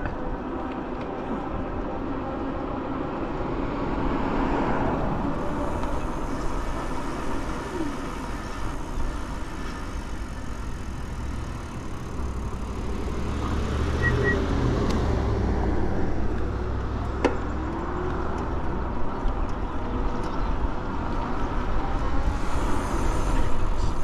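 Steady wind rush and tyre road noise from riding a Ride1Up Cafe Cruiser e-bike on pavement, with the low rumble growing heavier for a few seconds midway and a single brief click about two-thirds of the way through.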